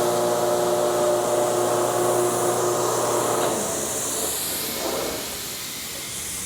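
Quincy 235 50 hp air-cooled rotary screw air compressor running steadily, then shutting off about three and a half seconds in as it reaches its 110 PSI cut-out; its hum falls away and a hiss of air is left.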